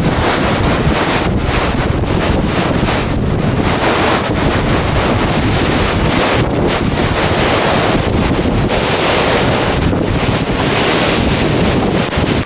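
Typhoon wind blowing hard across the microphone: a loud, continuous rush of noise that rises and falls slightly with the gusts.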